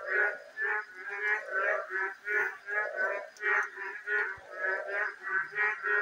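Frogs croaking, repeated calls coming about two a second without a break.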